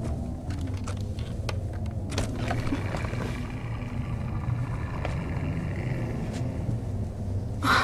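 Ominous horror-soundtrack effects for the approaching, unseen hellhounds: a low, steady rumble with scattered crackles and clicks, ending in a sudden loud hit near the end.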